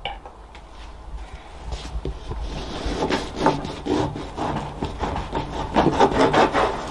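A knife sawing back and forth through the baked rye crust of a kalakukko, a Finnish fish pie: rasping strokes, about three a second, that start about two seconds in and grow louder.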